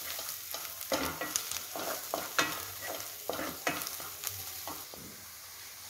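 Wooden spatula scraping and stirring around a metal kadai, a string of quick irregular strokes over the sizzle of onions and spice masala frying in oil. The strokes thin out and stop near the end.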